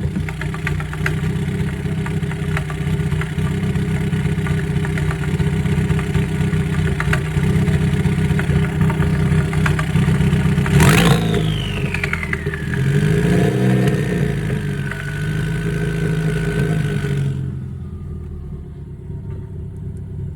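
Ford Focus four-cylinder engine running at idle with a misfire, which the tuner reports on cylinder 3. About halfway through there is a sharp burst, then a whistle that falls in pitch and holds steady for several seconds before cutting off.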